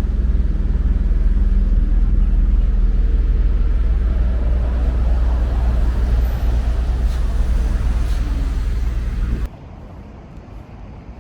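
Steady low rumble of a running motor vehicle, with a low engine hum, cutting off suddenly near the end to a much quieter background.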